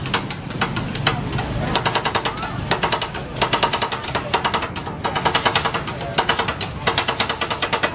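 Metal spatulas rapidly chopping and scraping on a steel ice-cream cold plate, a fast run of sharp clacks several a second, as fruit is chopped into the freezing cream base for rolled ice cream.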